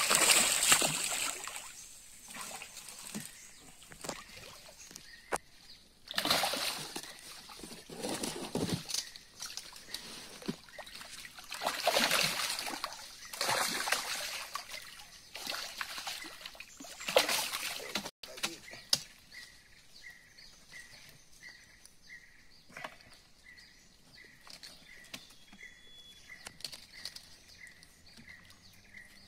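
A hooked giant snakehead (toman) thrashing at the water surface on a set line, throwing up loud splashes in several bouts over the first eighteen seconds. After that it goes quiet, with only a faint regular chirp about one and a half times a second.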